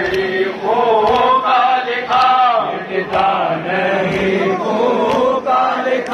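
Voices chanting a Muharram devotional recitation (nauha) in a steady melodic line, with sharp beats about once a second.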